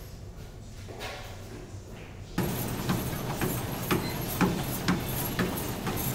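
Quiet room tone at first. Then, about two and a half seconds in, the sound changes to feet thudding on running treadmill belts, about two footfalls a second, over the steady noise of the treadmills.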